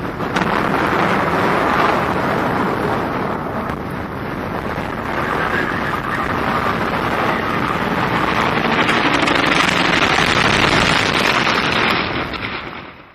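Heavy wind buffeting the microphone, a loud steady rush that fades out near the end.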